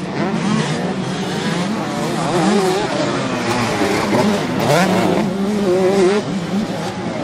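Several 125 cc two-stroke motocross bikes racing on a dirt track, their engines revving up and down as the riders throttle and shift, overlapping notes rising and falling. Loudest a little past halfway.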